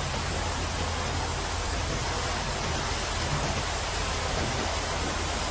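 Pressure washer spraying water in a steady hiss, with a low steady hum underneath.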